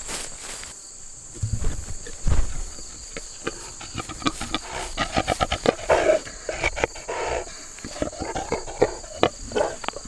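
A sow grunting and snuffling close to the microphone, with rustling and knocks as she noses at it. A steady high insect chirr runs underneath.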